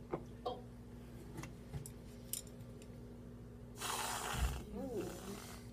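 Aerosol can of whipped topping spraying whipped cream, a hiss of about a second starting nearly four seconds in, trailing off with a faint sputter. Before it, a few light clicks on the plate.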